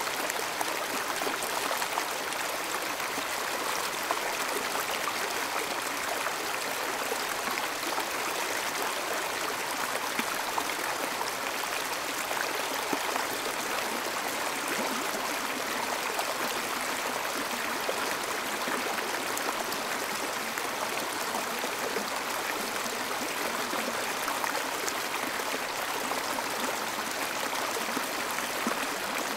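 Steady rushing of river water pouring over a low dam.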